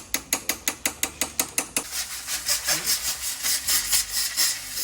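A hand tool working on a car's air-conditioning line: rapid, evenly spaced ratchet-like clicks, about six a second, that stop about two seconds in. These give way to rhythmic rubbing and scraping strokes, about three or four a second.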